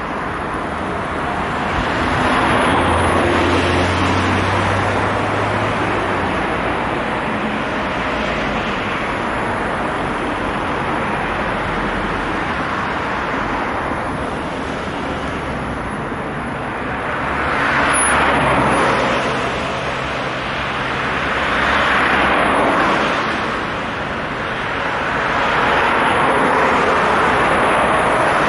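City road traffic: cars passing one after another at about 50 km/h, the tyre and engine noise swelling as each nearer car goes by, with several louder passes in the second half.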